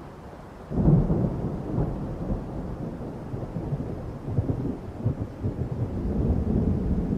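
Thunderstorm: a sudden thunderclap about a second in, then uneven low rumbling of thunder that keeps swelling and fading.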